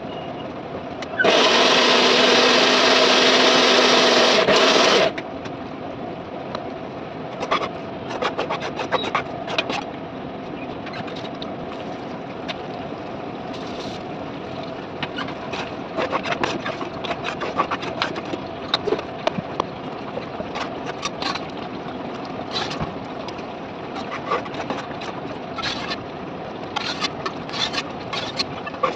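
A perforated steel ladle scraping and clicking against a metal kadai as thick tomato gravy is stirred, over a steady hum. About a second in, a loud, steady rushing noise starts abruptly, lasts about four seconds and cuts off.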